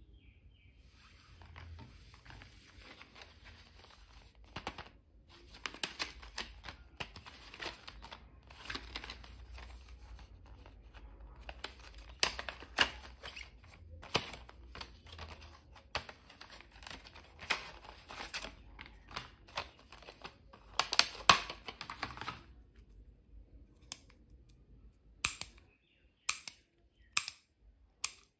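Plastic blister packaging with a cardboard backing being handled and opened: a dense crinkling rustle with many sharp crackles and cracks. Near the end this gives way to a few separate sharp clicks, about one a second, from a multicolour retractable pen.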